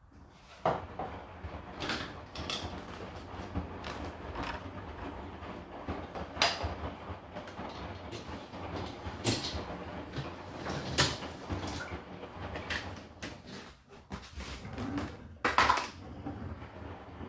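Crockery and utensils being loaded into a dishwasher's racks: an irregular run of clinks, knocks and clatter, with the loudest knock near the end.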